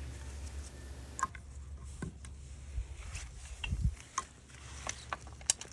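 Scattered light clicks and taps of tools and small metal parts being handled, over a low steady hum that stops about four seconds in.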